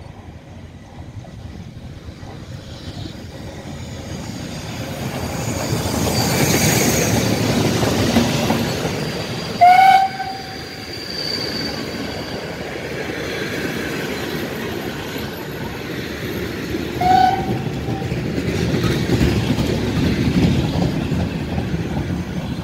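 Ty42 steam locomotive and its train of old passenger carriages rolling past, the wheels clattering over the rail joints and the noise building as the train comes alongside. The locomotive's whistle sounds two short blasts, the first and loudest about ten seconds in, the second about seventeen seconds in.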